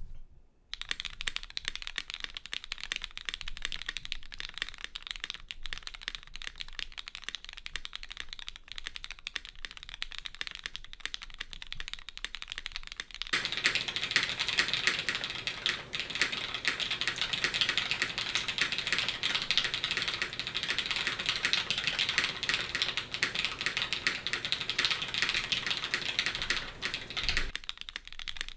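Typing on a custom mechanical keyboard with lubed Cherry MX Black linear switches in an aluminium plate and GMK keycaps: a fast, steady patter of keystrokes. Partway through, the typing becomes louder and fuller.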